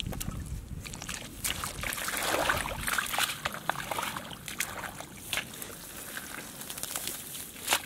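Wet mud and muddy water squelching and sloshing, with many small sharp clicks and splats.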